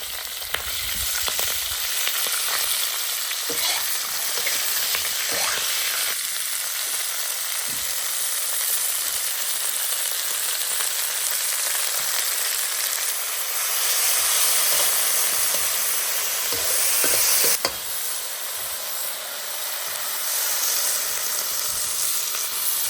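Pork trotters and dried long beans sizzling steadily in a hot pan as they are stirred, with occasional light scrapes.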